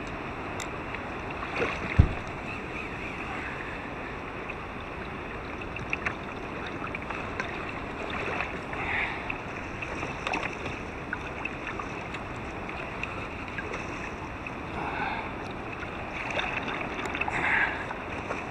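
Water lapping and splashing against a kayak's hull, with wind on the microphone. A single sharp knock about two seconds in.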